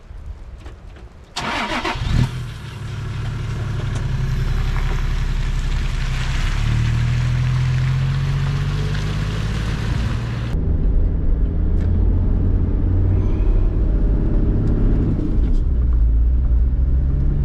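Toyota Land Cruiser Troopcarrier engine cranked and started about a second and a half in, then running and revving as the vehicle pulls off its levelling ramps. About ten seconds in the sound switches abruptly to a duller, steady engine and road rumble heard from on board while driving.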